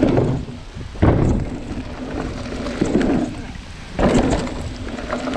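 Mountain bike riding over wooden ladder-bridge boards and off onto a dirt trail: tyres rumbling and rattling on the planks, with heavy thumps at the start, about a second in and again about four seconds in.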